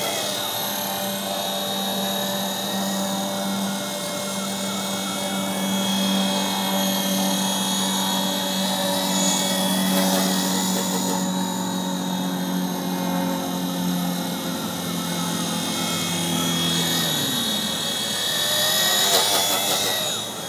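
WLToys V915 scale RC helicopter in flight, its Esky 370 electric motor and gears whining steadily over the rotor hum. About three-quarters of the way through the pitch drops, and the sound swells loudest near the end.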